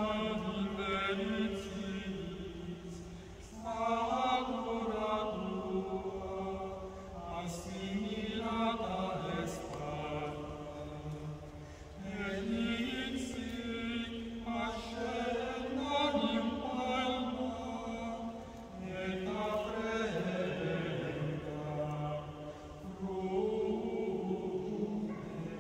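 Small mixed choir of men's and women's voices singing a Marian antiphon a cappella, in long sustained phrases with short breaks between them.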